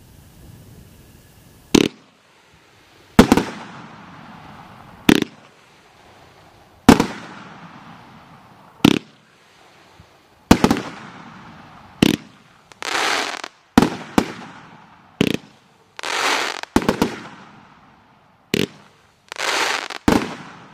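A Cutting Edge 'CE DC' 500-gram, 30-shot firework cake firing volleys of silver-tailed shells and sparkling mines. About fifteen sharp bangs come roughly every one and a half to two seconds, each echoing away. From about halfway through, short bursts of hissing crackle come between the bangs.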